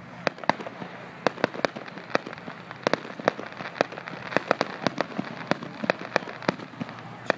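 Aerial firework shells bursting: an uneven run of sharp bangs, two to four a second, some much louder than others.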